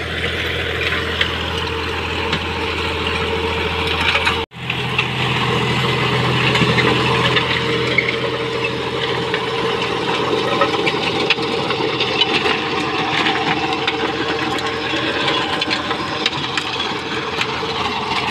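John Deere tractor's diesel engine running steadily under load, driving a rotavator that churns and breaks up the soil. The sound drops out for an instant about four and a half seconds in.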